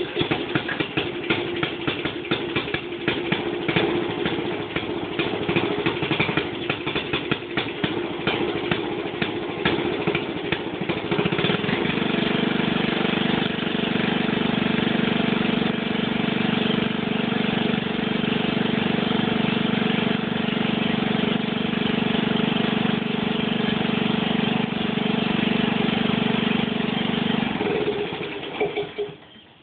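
Small single-cylinder engine of a Troy-Bilt rototiller catching on a cold start and running unevenly at first, then settling into a steadier, fuller run about twelve seconds in. It shuts off and dies away near the end.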